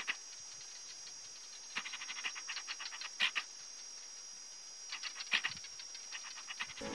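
Barking geckos calling: several runs of rapid clicking chirps over a steady high-pitched drone of insects.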